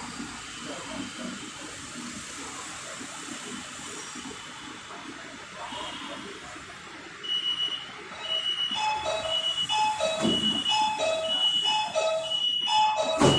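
Metro train standing at a station with a steady hiss of ventilation and station noise, then, about seven seconds in, the door warning chime starts: a rapid, repeating two-tone beeping, about two beeps a second and louder than the hiss, signalling the doors are about to close.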